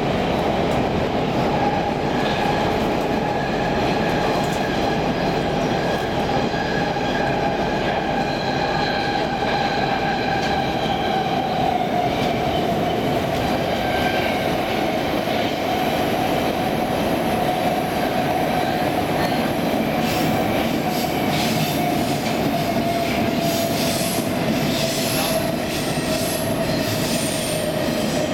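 Stockholm Metro C14 subway car running, heard from inside the car: a steady rumble of wheels on rail with a whine that slowly drops in pitch. From about two-thirds of the way through, clicks and brief high-pitched wheel squeals come in.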